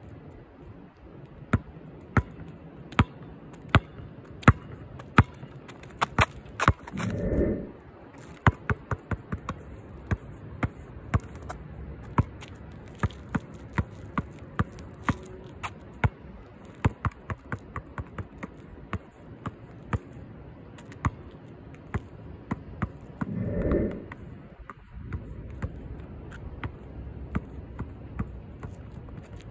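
A basketball bouncing on a hard court in a long, irregular run of sharp bounces, often two or three a second. A longer, lower sound breaks in twice, about seven seconds in and again about six seconds before the end.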